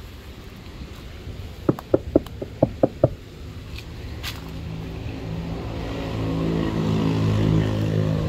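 A quick run of about seven sharp knocks, each ringing briefly, about two seconds in; then a motor vehicle engine running, growing louder toward the end as it approaches.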